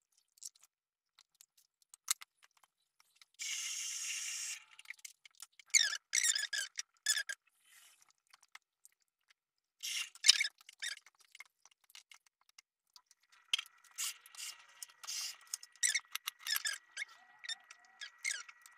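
Hands arranging a whole fish, sliced mushrooms and herbs in a glass baking dish: scattered clicks and taps, short squeaks and scrapes, and a hissing rustle for about a second just over three seconds in.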